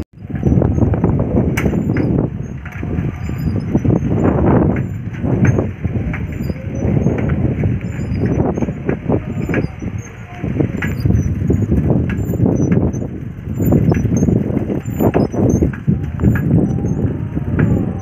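Wind rushing over the phone's microphone while riding: a loud, uneven rumble that swells and fades every second or two.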